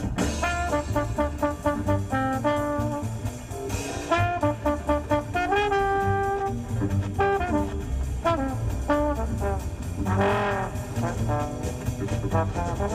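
Jazz with brass horns playing on a car radio, heard inside the car's cabin.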